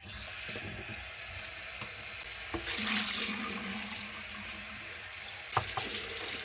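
Tap water running into a small non-stick electric pot as it is rinsed out, starting suddenly and running steadily, with a few light knocks of the pot near the end.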